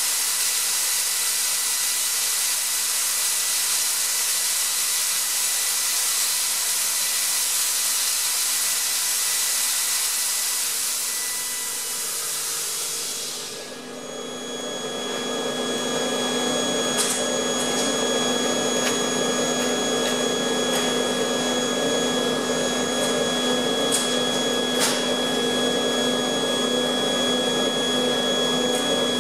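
Atlas Copco ZR 145 oil-free screw air compressor running, with a loud rushing hiss of air that fades away about halfway through. A steady humming run with a few light clicks remains after that.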